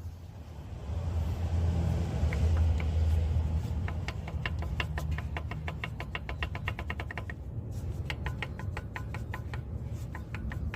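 Hyundai Accent engine running, rising briefly about a second in, then settling with a fast, regular ticking knock of about five strikes a second over the low hum. This is the running rumble that the mechanic puts down to worn pistons with play in the bores.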